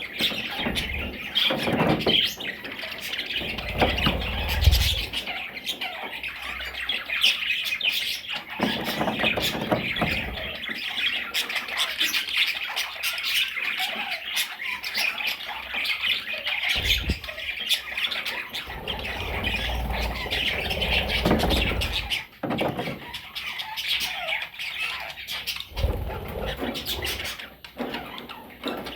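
Budgerigars chattering and squawking continuously, many calls overlapping, with a few low dull thumps along the way.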